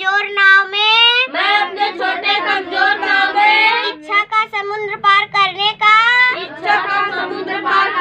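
A young girl's voice reciting lines of an English poem aloud in a drawn-out sing-song, her pitch gliding up and down with short breaks between phrases.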